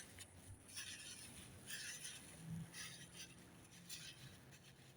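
Near silence, with a few faint, brief noises.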